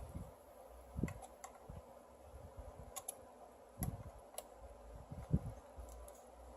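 Small parts of a rebuildable dripping atomizer being handled on a work surface: scattered light clicks and taps at irregular intervals, with a few soft low knocks.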